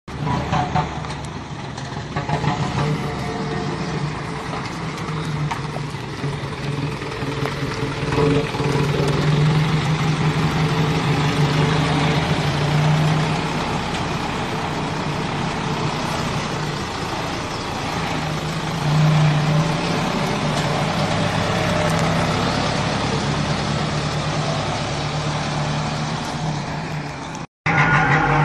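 Isuzu NQR truck's 4.8-litre diesel engine running as the truck moves slowly, a steady low drone that swells a little now and then. The sound cuts out for a moment near the end.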